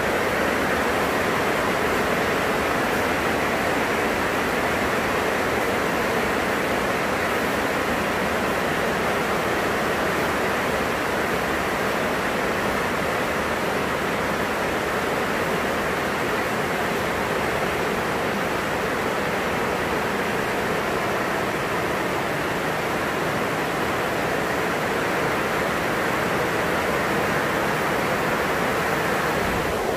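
Heavy rain falling, a steady dense hiss without pause.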